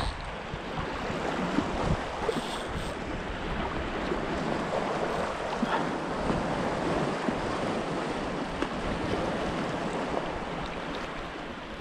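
Small sea waves lapping and washing steadily around the wading angler, with wind buffeting the microphone.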